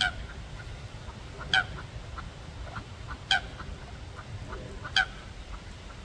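Waterfowl calling: four short, loud calls, about one every second and a half, over a low steady background rumble.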